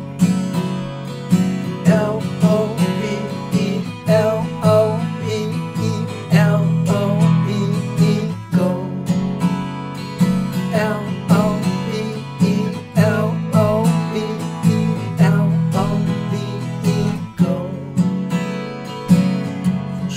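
Acoustic guitar strumming chords in a steady rhythm, with melody notes picked over the strums: a song's instrumental introduction.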